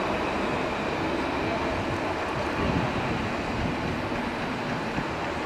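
Alstom Citadis electric tram running away along its track, a steady rail and running noise that slowly fades as it recedes.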